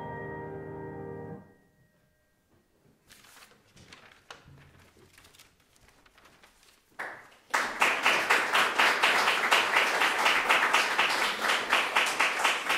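A grand piano's last chord rings and is cut off about a second and a half in. After a short hush a few scattered claps start, and about seven and a half seconds in the audience breaks into steady applause.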